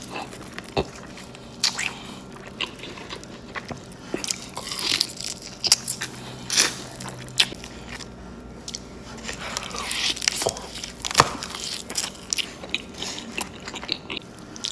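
A person eating close to the microphone: irregular crisp bites, crunches and chewing, mukbang-style.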